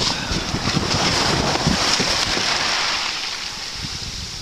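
Wind buffeting the microphone over the hiss and wash of the sea, easing off slightly near the end.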